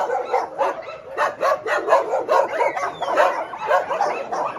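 A pack of dogs barking and yelping excitedly in a quick, overlapping stream, several calls a second: an excited greeting of a returning keeper.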